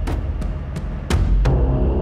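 Tense film score: a row of sharp percussion hits, about three a second, over a low bed, swelling into a louder sustained low drone about a second in.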